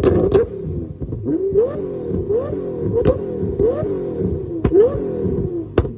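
Subaru WRX STI hatchback, stationary, with its engine blipped over and over: short quick rises and falls in revs about every half second to second. Sharp cracks from the exhaust come in between, a pair just after the start and single ones around the middle and near the end.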